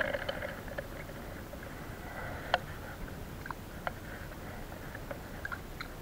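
A few sharp ticks and faint water sloshing as hands handle a caught fish in a water-filled collapsible fish bucket, over a steady background hiss.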